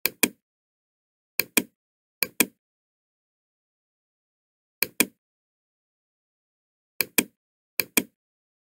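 Computer mouse clicking: six quick pairs of clicks at uneven intervals, with dead silence in between.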